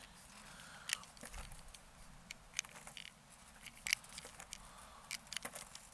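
Scattered small clicks and ticks of loading .25 slugs into an airgun's magazine and handling the rifle.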